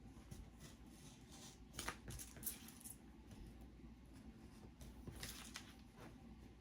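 Scissors cutting paper: a few quiet, crisp snips, the clearest about two seconds in and again around five seconds in.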